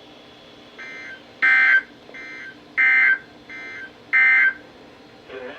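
NOAA Weather Radio SAME end-of-message (EOM) data bursts: short, harsh, warbling digital tones that close an emergency alert. There are three loud bursts about 1.4 s apart, with three fainter bursts between them.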